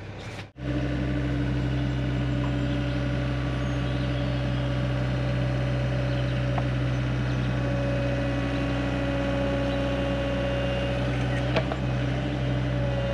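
Hyundai HX85A excavator's diesel engine running steadily as the machine works its boom, a constant low hum with a steadier higher tone above it. One light click near the end.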